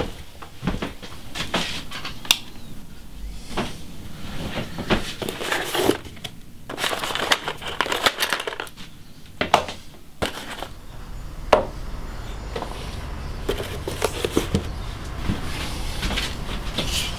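Workshop handling sounds: scattered knocks and clatter of tools and objects being moved. About seven seconds in there is a longer rustle as a hand rummages in a cardboard box.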